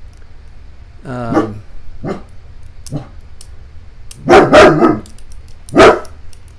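A pet dog barking: a short whine-like cry about a second in and a couple of soft woofs, then three loud barks, two in quick succession and one more about a second later.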